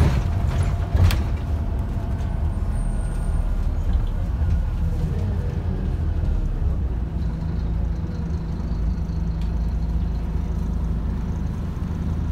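Inside a moving Scania OmniCity bus: steady engine and road rumble, with two sharp knocks or rattles in the first second or so. The engine note settles into a steady hum about halfway through.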